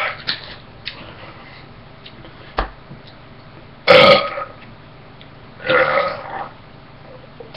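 A man burping twice, a short loud burp about four seconds in and a longer, softer one about two seconds later. A single sharp knock comes shortly before the first.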